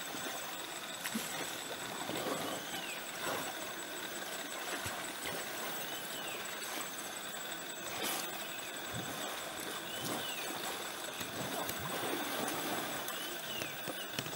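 Water sloshing and splashing as wild Asian elephants bathe and wallow in a river, with a few short chirps over a steady background.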